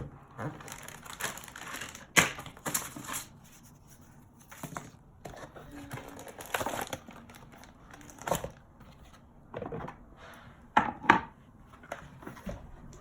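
Packaging of a kinetic sand set being handled and opened: irregular crinkling and rustling with scattered clicks and knocks, the sharpest about two seconds in and near the end.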